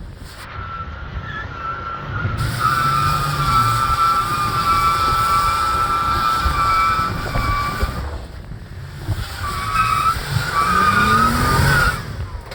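Toyota 4Runner's tires squealing as they slip and grip on steep rock, in two long, wavering stretches with a short break about eight seconds in, over the engine's low running, which revs up near the end.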